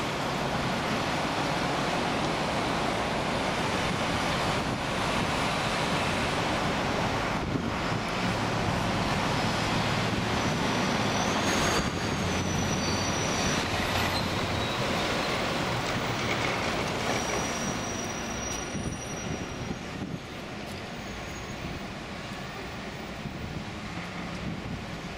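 Heavy road traffic on a city highway: trucks and cars passing close below, a steady rush of tyres and diesel engines that eases off about two-thirds of the way through. A thin high squeal sounds twice near the middle.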